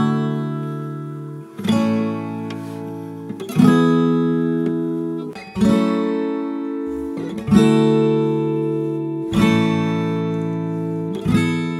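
Acoustic guitar instrumental: a chord strummed about every two seconds, each left to ring and fade out.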